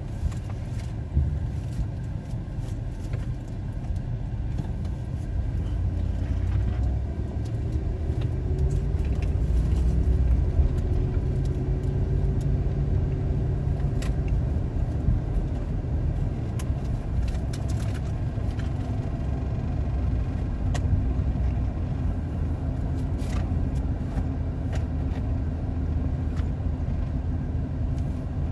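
Car engine and road noise heard from inside the cabin, a steady low rumble. It grows louder with a faint rising engine note about eight seconds in as the car picks up speed, then settles into an even cruise.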